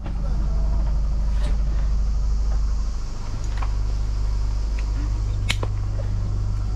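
Steady low mechanical hum, with a few sharp clicks and rustling as the buckles and straps of a child's life jacket are handled.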